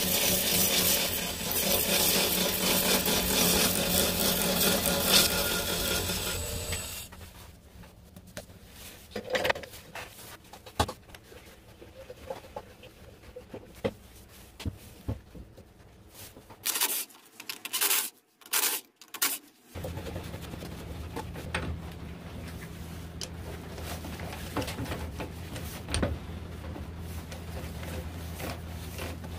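A wood lathe spins a Kaizuka juniper blank while a gouge cuts it, making a loud, steady rough cutting noise over the low motor hum. It stops about seven seconds in. Scattered knocks and clicks follow as the wooden piece is handled. From about twenty seconds in, a steady low hum runs on.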